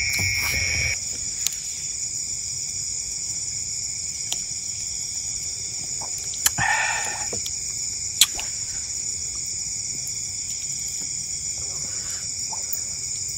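Steady, high-pitched chorus of night insects, with one short animal call about halfway through and a couple of sharp clicks.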